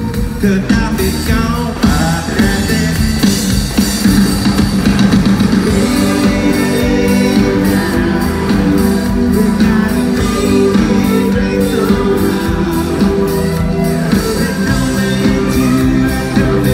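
Live rock band playing at full volume through an arena PA: electric guitar and drum kit with a singing voice, heard from among the crowd.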